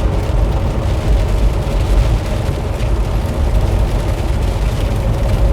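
Semi truck heard from inside the cab at highway speed on a flooded freeway: a steady low rumble from the diesel engine and tyres, with the hiss of rain and road spray over it.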